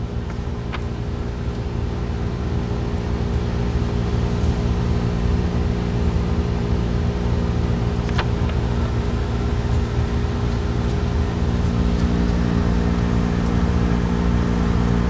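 A steady low hum with several held tones, slowly growing louder, and a faint click about eight seconds in.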